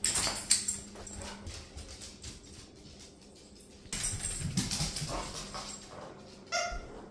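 Beagle and hound play-fighting over a toy on tile and wooden floors: scuffling paws and claws with thumps, in a burst at the start and again about four seconds in as the toy is flung, then one short high-pitched squeal near the end.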